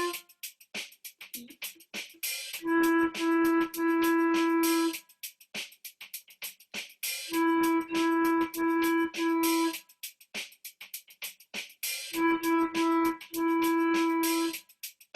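A flute plays short call-and-response phrases over a drum loop. Each phrase is three to four notes, all on the same low pitch, and three phrases come about five seconds apart. Between phrases there are gaps of a couple of seconds, left for students to echo, in which only the drum loop's fast ticking is heard.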